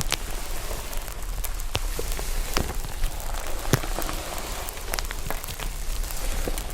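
Slime being worked by hand, cracking and popping: irregular sharp clicks a few times a second, some louder than others, over a soft steady crackly hiss.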